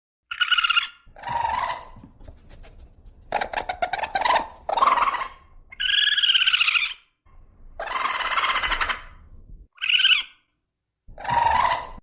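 Raccoon calling in a string of short calls, each about a second long with brief gaps: high, wavering squeals alternating with rougher, hoarse chitters, and a fast rattling trill about three seconds in.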